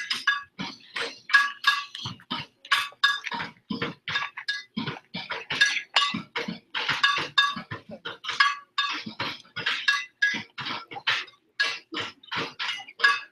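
Metal wheelbarrows struck as percussion instruments: a fast, uneven clatter of hits, several a second, each ringing with the same few metallic pitches.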